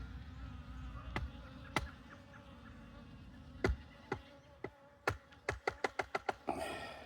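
Honeybees buzzing, with sharp taps as the HiveGate entrance piece is knocked to shake the bees off it. The taps come a few at a time at first, then speed up into a quick run of about eight near the end, followed by a brief rustle.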